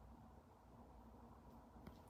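Near silence: faint room tone with a low hum and one soft click near the end.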